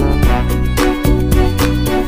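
Background music with a steady beat, about two beats a second, over sustained instrumental notes.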